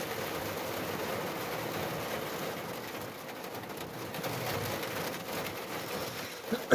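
Rain pattering steadily on the roof of a small camper van, heard from inside, with a faint steady hum underneath.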